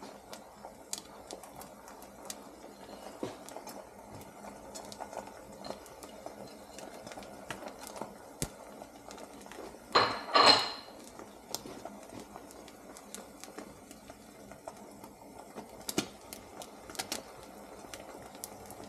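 Beaten eggs cooking gently in a nonstick frying pan, a faint steady sizzle with small crackles, and a pair of clattering knocks of kitchenware about ten seconds in.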